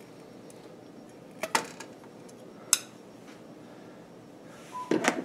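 Scissors snipping through flexible water-cooling tubing: two sharp metallic clicks about a second apart, then a short clatter of clinks near the end.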